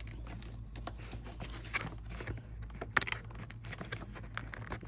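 A cardboard toy box being handled and closed by hand: faint scattered taps, scrapes and rustles of card, with one sharper tap about three seconds in.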